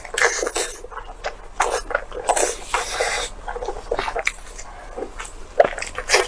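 Close-miked mukbang eating sounds: wet chewing, smacking and slurping of soft, chewy food, in irregular bursts.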